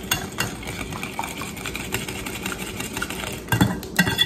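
Wire whisk beating egg wash in a glass bowl, the wires clicking and tapping quickly against the glass, with a few louder knocks near the end.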